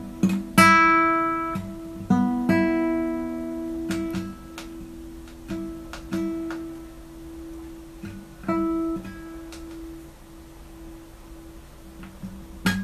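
Open strings of a classical guitar plucked by a cat's paw. About eight uneven, single or paired notes ring out and die away, with light clicks of the paw on the strings in between.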